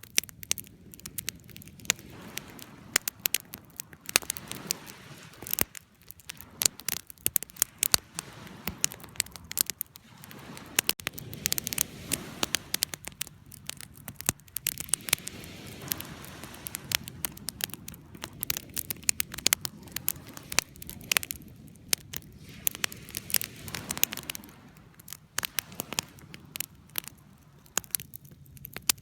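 Wood fire burning, crackling and snapping in quick irregular pops over a low steady hiss of flame.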